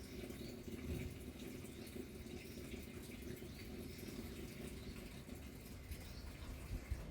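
Quiet outdoor ambience: a low steady hum with faint short high chirps repeating every second or so.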